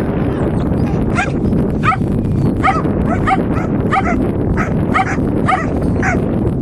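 A dog barking repeatedly in short, even barks, about one and a half a second, over a steady low rumble.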